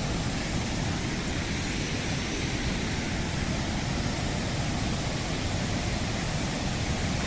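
Steady rushing noise, even throughout, with no separate sounds standing out.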